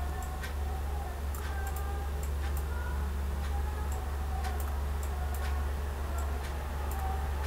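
Computer mouse clicking at irregular intervals, about once a second, as control points are selected and dragged, over a steady low hum.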